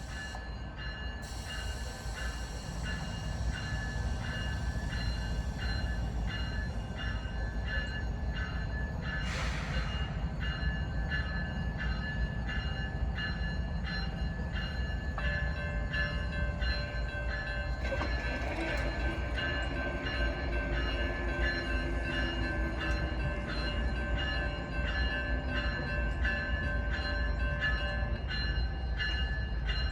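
CSX freight train rolling past: a steady low rumble of the cars with regular clicking of wheels over rail joints and a thin, steady high-pitched ring.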